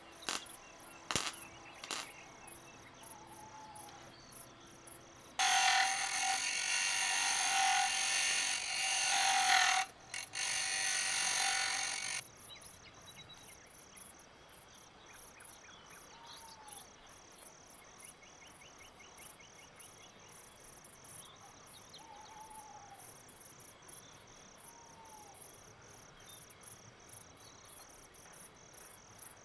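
Crickets chirping steadily, a rapid even pulsing. About five seconds in, a loud steady hiss starts and runs for about seven seconds, with a brief break partway, then stops suddenly.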